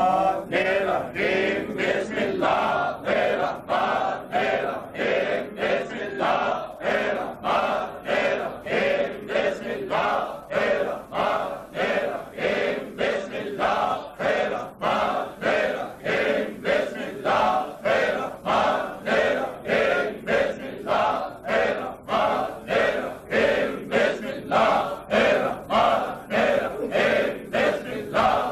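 A large group of men chanting dhikr in unison, one short phrase repeated in a steady rhythm of about two pulses a second.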